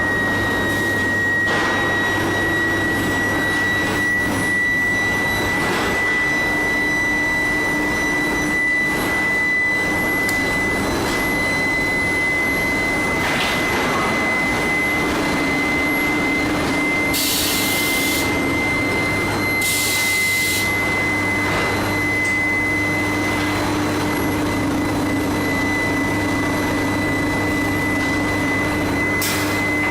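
Medium-frequency induction billet heating furnace running: a steady high whine that creeps slightly up in pitch over a constant hum and machine noise. Two short hissing bursts come about halfway through.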